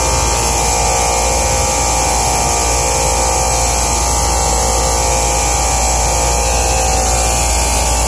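Steady drone of an old Engineered Air rooftop R22 cooling unit running: compressor and fan hum with a few steady tones over an even hiss, unchanging throughout.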